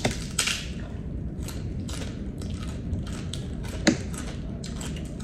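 Chicharon (fried pork rinds) being crunched and chewed close to the microphone, a run of crisp crackles with a sharper crack about four seconds in.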